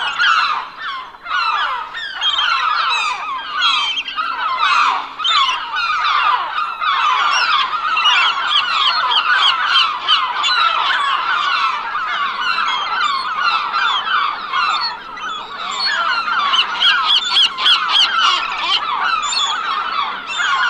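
A large flock of gulls calling, many short cries overlapping without a break.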